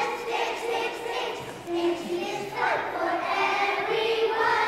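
A choir of young children singing together in unison, holding some of the notes.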